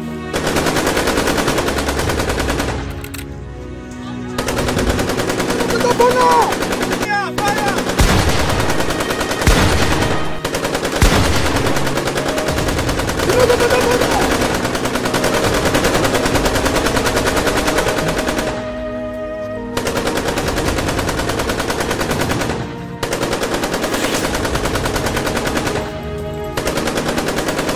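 Long bursts of rapid automatic gunfire, broken by several short pauses.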